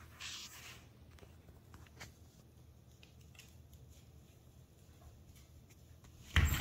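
Quiet room with a steady low hum and a few faint ticks, a short hiss lasting about half a second near the start, and a sudden loud noise breaking in just before the end.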